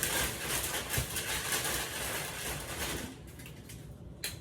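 Water running from a kitchen tap for about three seconds, drawn to thin a thick sauce, then shut off. A short knock near the end.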